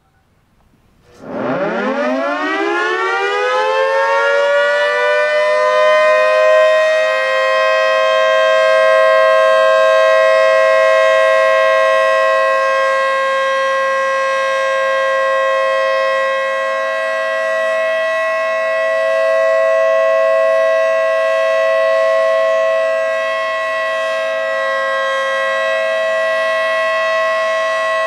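Federal Signal 2T22B two-tone outdoor warning siren spinning up about a second in, its chord gliding up in pitch over a few seconds, then holding a steady two-note tone whose loudness swells and dips slowly. This is the steady 'alert' signal of a siren test.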